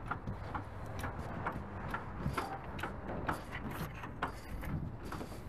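Irregular light clicks and knocks from handling the electric winch on a wooden car-trailer deck, with no steady rhythm.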